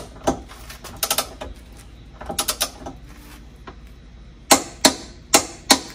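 Torque wrench on an 18 mm hitch nut, ratcheting in short runs of quick clicks, then four sharper single clicks near the end as the wrench reaches its set torque of 86 foot-pounds.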